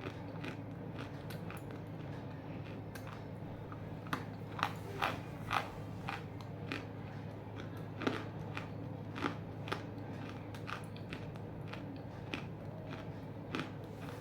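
Chunks of half-roasted edible clay being bitten and chewed: irregular crisp crunches, loudest in a cluster about four to six seconds in, over a steady low hum.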